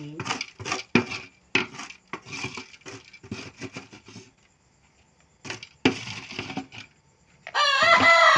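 Metal utensils scraping and clinking against pots in short, separate strokes as steamed rice is scooped out of a steamer. About seven and a half seconds in, a rooster starts crowing, the loudest sound.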